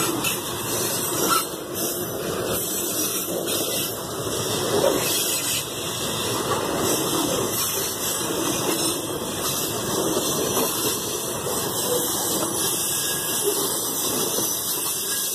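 Loaded freight hopper cars rolling past on the track: a steady rumble and hiss of steel wheels on the rails.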